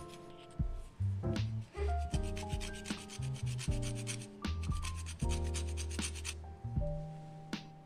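Lemon peel rasped against a flat metal zester-grater: quick scraping strokes in runs, over soft background music.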